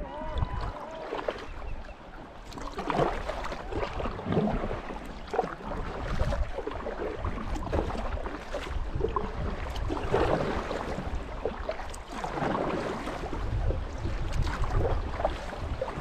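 Kayak paddle strokes dipping and splashing in shallow river water, with water rippling around the boat and a low rumble of wind on the microphone.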